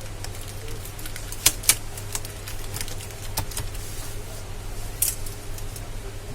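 Scattered sharp clicks and taps of monitor parts being handled and fitted together during reassembly, with the loudest knocks about a second and a half in, just after, and about five seconds in, over a steady low hum.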